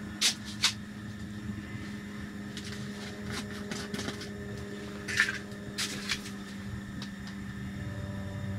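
Scattered sharp knocks and clatters of objects being handled, several close together near the start and again around the middle, over a steady low hum.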